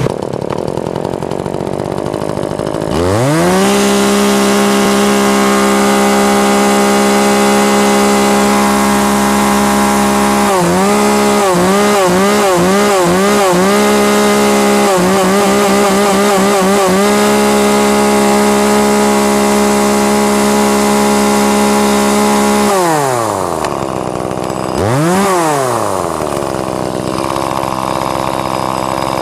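Hitachi CS33EDTP 32 cc two-stroke top-handle chainsaw idling, then revved to full throttle about three seconds in and held at a steady high pitch. The revs waver up and down in two spells in the middle, then drop back to idle near the end, with one more short blip of the throttle.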